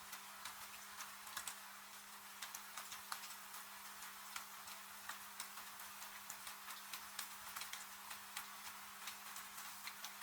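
Fireplace crackling, with irregular sharp pops and snaps over a steady hiss of rain. A faint steady low hum runs underneath.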